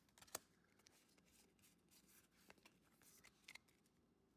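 Faint handling noises of a foil booster pack and trading cards: soft rustling and scattered light clicks, with a sharper click about a third of a second in and a couple more near the end.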